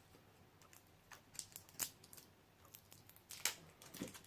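Faint scattered clicks and light crinkling from small objects being handled, with one sharper click about three and a half seconds in.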